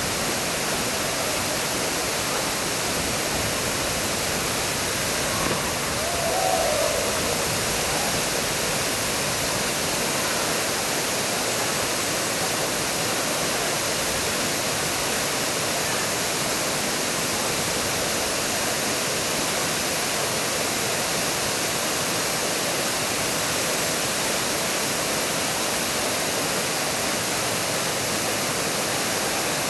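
Steady rushing roar of a waterfall pouring into a pool, constant throughout.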